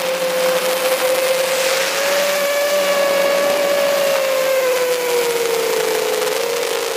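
Drone's motors and propellers whining steadily in flight, one droning tone over a rushing hiss of air, dipping slightly in pitch about two-thirds of the way in.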